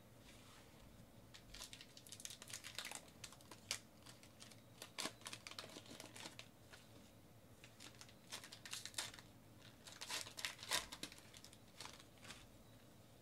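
Foil wrappers of Topps Archives baseball card packs crinkling and tearing as packs are ripped open and the cards are pulled out. The sound comes in irregular crackly bursts, heaviest about two, five, nine and ten seconds in.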